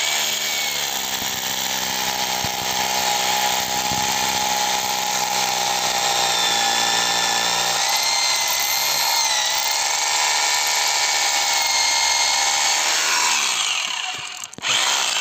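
Bosch Professional rotary hammer drill boring into a concrete roof slab with a masonry bit, running steadily and stopping about thirteen seconds in. A short second burst of the same noise comes near the end.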